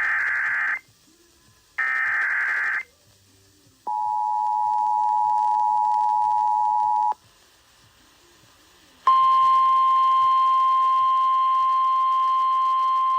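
Emergency Alert System broadcast signals. First come the end of one SAME header data burst and then a third short data burst, about a second each. Next, the two-tone EAS attention signal sounds for about three seconds. After a two-second pause, a single steady, loud alarm tone, the NOAA Weather Radio warning tone, starts about nine seconds in and holds.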